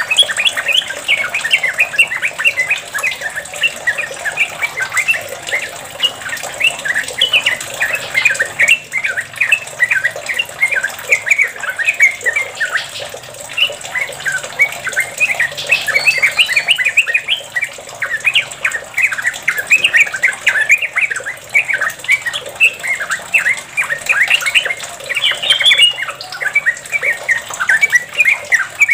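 Yellow-vented bulbul (trucukan) singing a long, unbroken run of fast, bubbly chattering notes: the rapid 'ropel' style of song.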